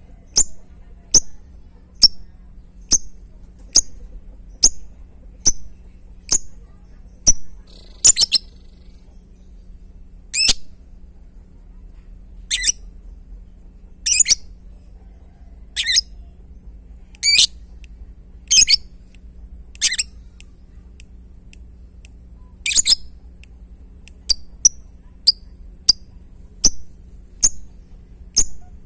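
Lovebird giving its ticking 'ngetik' call: short sharp tick notes repeated a little faster than once a second. Through the middle stretch louder, harsh chirps come every second or two instead, and the ticks resume near the end.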